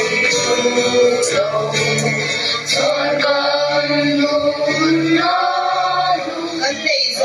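Song with music, voices singing long held notes.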